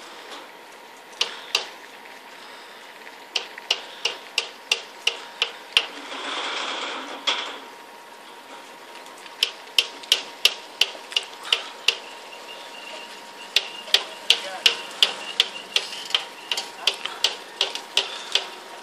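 Runs of sharp taps or clicks, about three a second, repeated in several bursts, with a short stretch of rustling noise between the first two runs.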